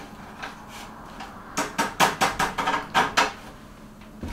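Kitchen clatter: a quick run of about eight sharp knocks in under two seconds as dishes and food containers are handled on a counter.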